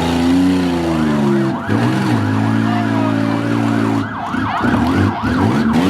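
Emergency vehicle siren yelping, a rapid repeating rise and fall of pitch starting about a second in, over engines running steadily.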